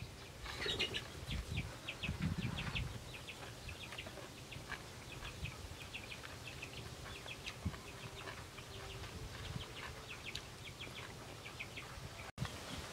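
Small birds chirping, many short high chirps repeating. Soft chewing and eating sounds are heard in the first three seconds.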